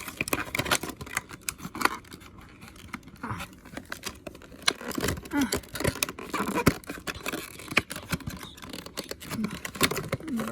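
Cardboard and plastic packaging being handled: irregular scraping, scratching and tapping as a model car's display box is pulled out of its shipping box.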